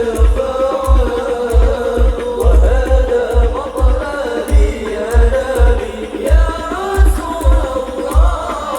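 Sholawat devotional singing: one melodic voice line over percussion with a deep drum beat about twice a second.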